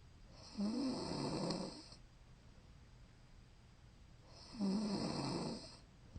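A woman snoring in her sleep: two snores about four seconds apart, each lasting about a second and a half and opening with a low buzz.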